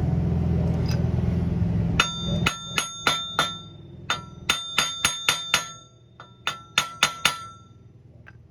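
A hammer tapping a stripped, press-fit wheel stud out of a Nissan 350Z wheel hub, each blow a sharp, ringing metal clink. About fourteen taps come in quick groups of three to five, after a steady low hum in the first two seconds, with two faint taps near the end.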